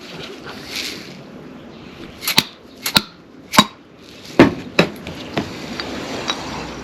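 Sharp metal taps driving the splined shaft out of a Honda power steering pump held in a vise, to get at the worn bearing and leaking seals behind it. About six ringing strikes come in quick succession starting about two seconds in, followed by a few lighter clinks.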